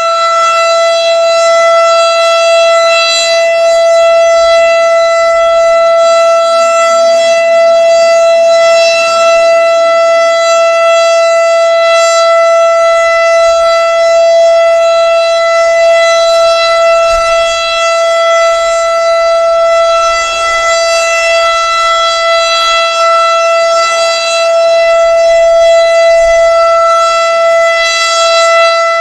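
Federal Signal Super Siren sounding the steady Alert tone, one unbroken high pitch that holds level throughout, here sounded for a wind warning. Wind buffets the microphone now and then with a low rumble.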